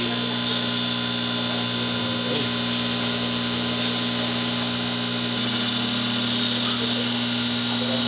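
A microwave oven replacement part plugged into mains power for a bench test, giving off a steady electrical hum at an unchanging pitch.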